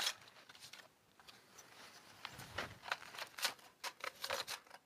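Scattered metallic clicks and scrapes of a dust-fouled AR-15 (M4-pattern carbine) being handled and its action worked by hand to clear a bolt stuck closed after a round failed to fire, with grit suspected in the firing pin; a sharper click comes right at the start and a run of clicks near the end.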